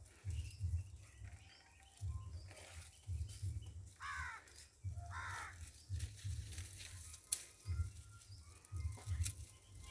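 A crow cawing twice, about four and five seconds in, over a low, uneven rumble.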